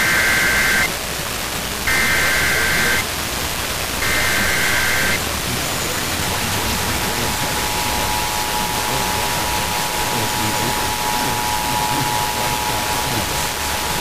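Emergency Alert System broadcast over weak, hissy FM radio reception: three short bursts of the SAME digital header's shrill two-tone data, each about a second long and two seconds apart, then from about six seconds in the steady two-tone EAS attention signal (853 and 960 Hz). Static hiss runs underneath, typical of long-distance E-skip reception.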